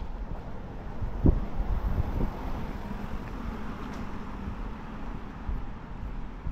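A car passing along a street, its tyre noise swelling and fading over a few seconds. Wind buffets the microphone with two low thumps about a second and two seconds in.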